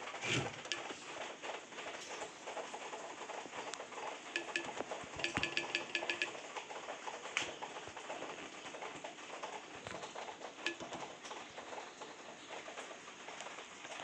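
A bird calls in a quick run of short, repeated notes about five seconds in, among scattered clicks and rustling.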